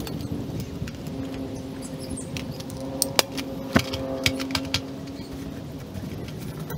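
Clicks and rattles of nylon gear pouches and their plastic buckles and fittings being handled, with a cluster of sharp clicks about halfway through, over a steady low hum.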